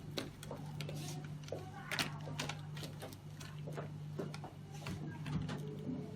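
Irregular light clicks and knocks of plastic bottles, caps and tubing being handled, over a steady low hum. A thin steady tone joins near the end.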